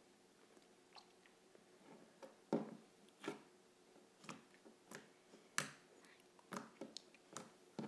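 Light-blue slime being pressed and kneaded by hand against a wooden tabletop, giving about ten irregular sharp pops and clicks.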